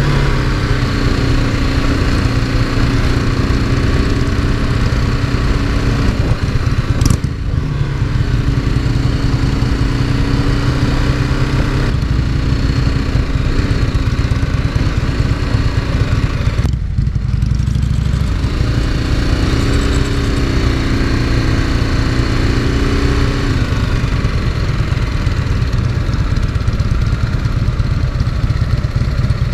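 Motorcycle engine running at low road speed as the bike rolls slowly along, heard from on the bike. The engine note shifts and dips briefly twice, as with throttle changes or gear shifts.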